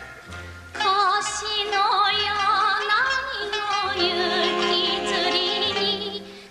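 A female singer sings a Japanese kayōkyoku song in a full, wavering vibrato, accompanied by an orchestra. The voice comes in about a second in, after a brief instrumental phrase.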